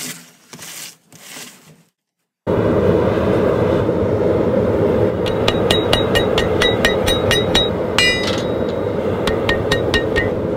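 A hammer striking red-hot steel on an anvil, about three blows a second, each with a bright metallic ring, with a short break between two runs of blows. A loud steady rushing noise runs under the blows. It starts abruptly a few seconds in, after three short scuffing sounds and a moment of silence.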